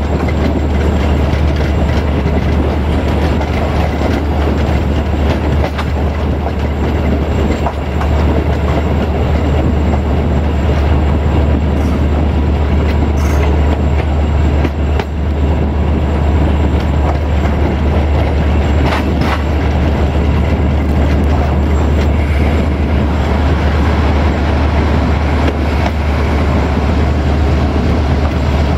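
Passenger train's wheels rolling steadily over the rails, heard from a coach window: a loud, even rumble with a few sharp clicks.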